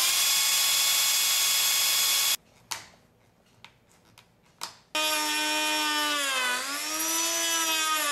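Bosch cordless drill whining as it bores into the wooden case edge, cutting off about two seconds in. A few faint clicks follow, then a power-tool motor runs again from about five seconds, its pitch sagging briefly under load and recovering.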